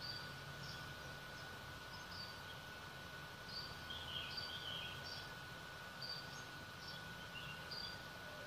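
Faint bird chirps: short, high chirps every half second to a second. Beneath them run a steady faint high tone and a light hiss.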